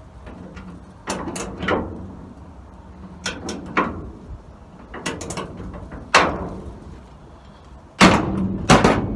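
Scattered metal clicks and clanks as a wrench works a nut welded onto a seized car-door hinge pin back and forth. The loudest two knocks come near the end.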